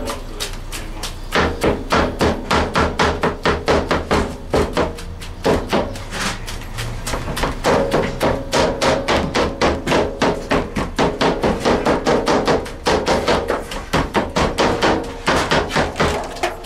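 Cleavers chopping cooked barbecue meat by hand, rapid repeated strikes at about four to five a second with barely a pause.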